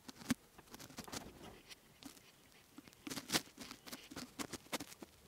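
Plastic wiring-harness connector and loose wires being handled under a Jaguar XKR's dashboard: scattered small clicks and rustles, with a cluster of sharper clicks about three seconds in.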